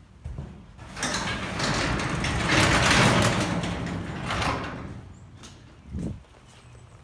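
Sectional garage door being opened, rumbling and rattling for about four seconds as it rolls up its tracks, followed by a short thump near the end.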